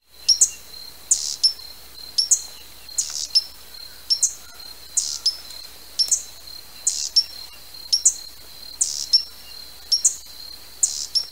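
Hummingbird giving sharp, high chip calls, mostly in pairs about a second apart, over a thin steady high tone.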